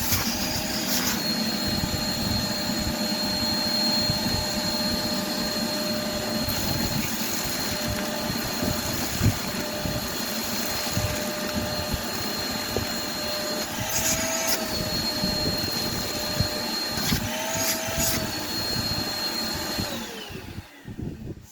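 Shop vacuum running steadily while sucking up broken glass, its whine wavering briefly a couple of times. Near the end it is switched off and the motor winds down.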